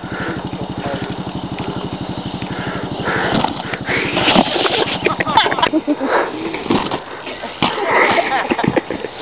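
A small engine running with an even, fast beat for about the first three seconds, then people's voices calling out over it.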